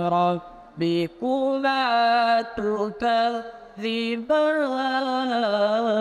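A single man's voice chanting an Islamic devotional recitation, drawing out long, wavering, ornamented notes in phrases broken by short pauses.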